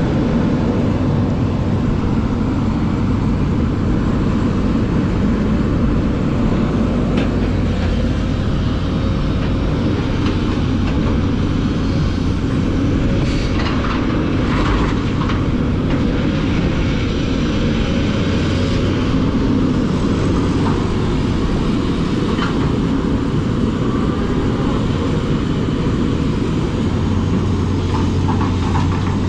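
A heavy diesel engine of earthmoving machinery running steadily with a constant low hum, with some brief clattering about 13 to 16 seconds in.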